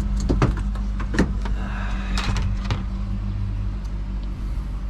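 Plastic interior trim panel being worked loose by hand: a few sharp clicks and knocks in the first three seconds, over a steady low hum.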